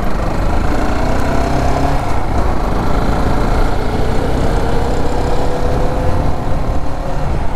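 Sport motorcycle riding along at road speed, its engine note faintly heard under heavy wind rumble on a clip-on lavalier microphone; the engine pitch rises gently over the middle of the stretch.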